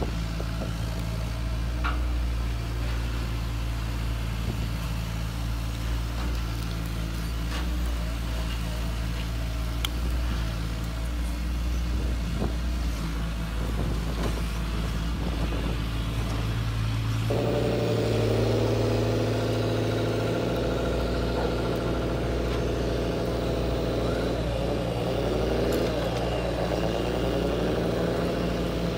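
Motors of a large radio-controlled excavator running with a steady low hum. Partway through, a higher motor whine starts abruptly, and near the end it swings up and down in pitch.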